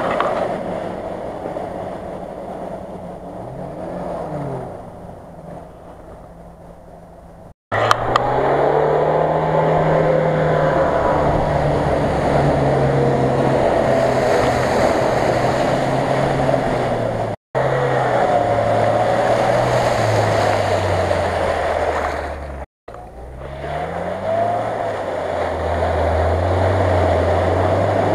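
Off-road SUVs driving through a flooded river in several short takes: engines pulling steadily under load while the wheels throw up splashing water and spray. In the first take a Nissan Patrol's engine and splashing fade as it drives away.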